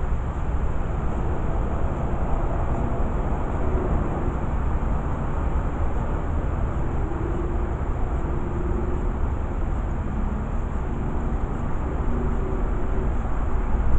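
Steady low rumbling noise with no break, with faint short tones drifting in and out above it.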